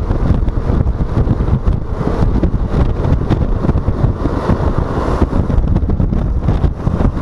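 Wind buffeting the microphone of a moving Yamaha XMAX 125 scooter: a loud, steady, low rush with no clear engine note standing out.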